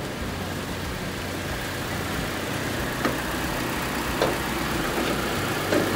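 Toyota Kijang Innova petrol engine idling steadily and smoothly, with a couple of light clicks as the bonnet is raised and propped about three and four seconds in.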